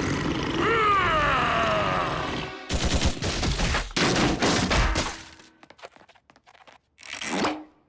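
Cartoon slapstick sound effects: a loud rushing noise with a falling cry, then a rapid run of bangs like a volley of shots, a few light clicks and a short whoosh near the end.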